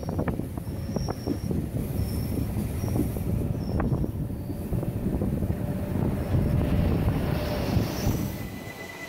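Rhaetian Railway Bernina Express train running on the rails: a loud rumble with clicks and short high wheel squeals as it takes the tight curve of the Brusio spiral viaduct. The rumble drops away near the end.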